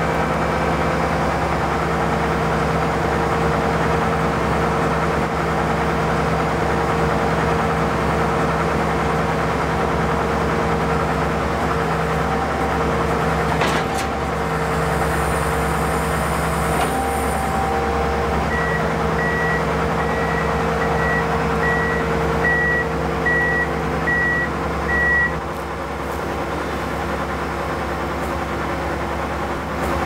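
Fendt Ideal 7T combine harvester running with a steady engine and machinery hum. About two-thirds of the way in, a high electronic beeper sounds a string of short evenly spaced beeps for about seven seconds.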